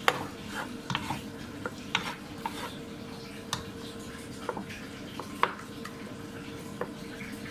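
Cooking utensil stirring in a pan, with irregular clinks and knocks of metal against the pan, the sharpest right at the start and about five and a half seconds in.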